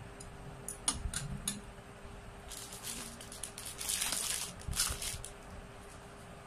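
Handling sounds as small tea cups are set into a wicker gift basket: a few light clicks and taps about a second in, then a couple of seconds of rustling and crinkling of the basket's wrapping as things are arranged.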